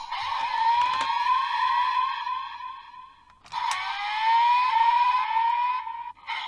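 Electronic sound effects from a Kamen Rider Geats toy driver belt playing through its small speaker: two stretches of quickly repeated rising, siren-like tones, split by a short break about halfway through.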